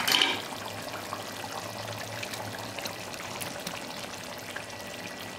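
Par-boiled rice being poured from a steel bowl into a pan of simmering chicken gravy, landing with a soft, even pattering in the wet sauce. A short sharp clink or scrape comes right at the start, and a steady low hum runs underneath.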